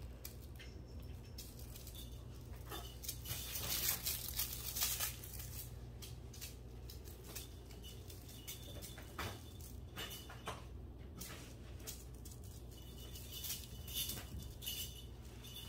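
A kitten's paws pattering and scuffing on a hardwood floor as it pounces on and bats a fabric toy: a scattered run of light taps and scrapes, busiest about three to five seconds in, over a steady low hum.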